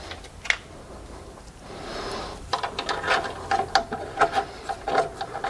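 Sheet-metal exhaust manifold heat shield and its bolt rattling and clicking as they are worked by hand, while the bolt is being started in its thread. One sharp click about half a second in, then quick, irregular metallic clicking from about two and a half seconds on.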